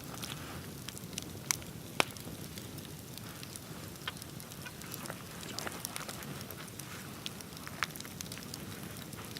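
Wood bonfire crackling: scattered sharp pops and snaps, the loudest about two seconds in, over the steady low rush of the flames.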